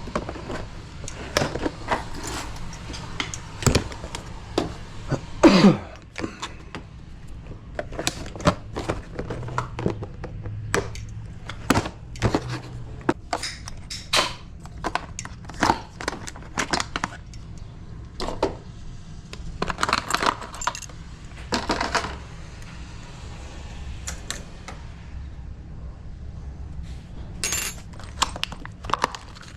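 Irregular metal clicks, clinks and knocks as deadbolt hardware and tools are handled and fitted on a door.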